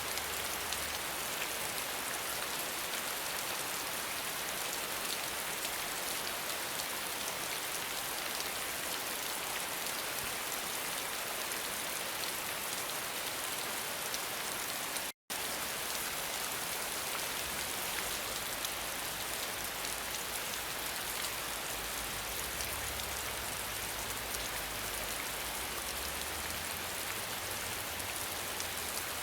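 Steady rain falling, a dense even hiss with many fine drop ticks. About halfway through it cuts out for a split second of silence, then carries on unchanged.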